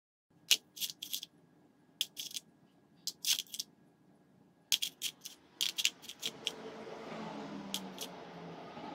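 Carbide lathe turning inserts clinking in a plastic tub as a hand picks through them: a string of sharp metallic clicks, then from about six seconds in a continuous rattle as the fingers stir the pile.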